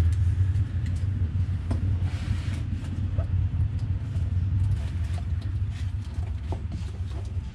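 A steady low rumble throughout, with a few faint clicks and taps of a small jar of anti-seize being opened and a brush dipped into it.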